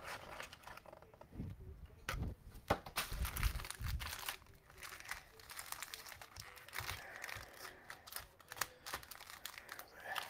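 Plastic wrappers of Mosaic trading-card cello and hanger packs crinkling and tearing as packs are opened and cards are handled, with a few soft knocks in the first few seconds.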